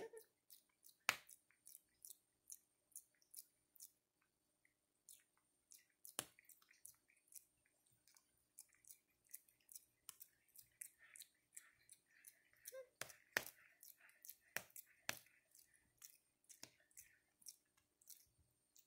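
Java macaque grooming a person's hair: a faint, steady run of soft clicks and smacks, a few a second, with a handful of sharper, louder clicks.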